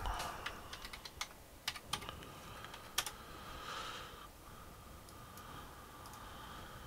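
Typing on a computer keyboard: a quick, irregular run of key clicks over the first three seconds, the sharpest near the end of the run, then a faint steady hum.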